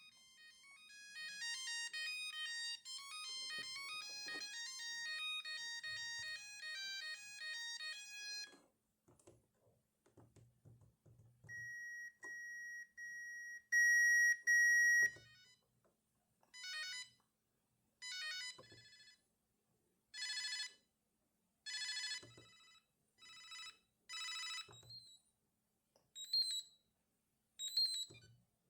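Siemens A50 mobile phone playing its built-in ringtones one after another through its small speaker. First comes a fast beeping melody for about eight seconds, then a steady high beep held for about three seconds and louder near its end. Last come short ringing bursts repeating about every one and a half seconds.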